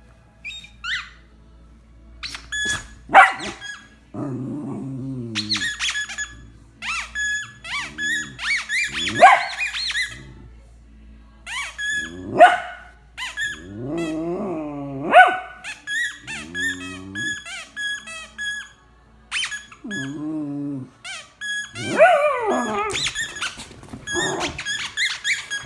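A puggle dog vocalising in bouts: low, wavering grumbles and whines mixed with repeated short high-pitched squeaks, and a few sharp, loud yips or barks.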